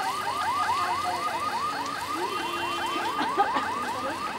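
An electronic alarm siren yelping in a fast, steady series of rising sweeps, about five a second, running without a break.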